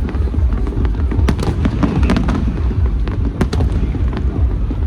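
Aerial fireworks display: a continuous deep rumble of shell bursts, with sharp cracks about a second in and again twice in quick succession near three and a half seconds.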